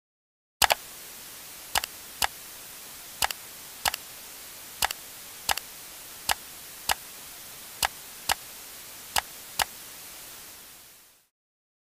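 Steady hiss with sharp clicks and pops at irregular intervals, some in quick pairs, like the surface noise of an old recording; it starts suddenly and fades out near the end.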